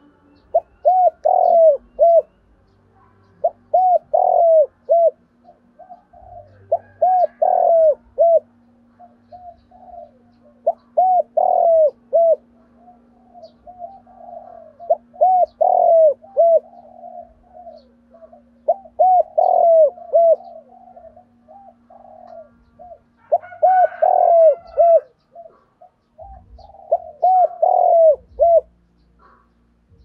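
Spotted dove cooing: about eight phrases of several short coos each, one phrase every few seconds.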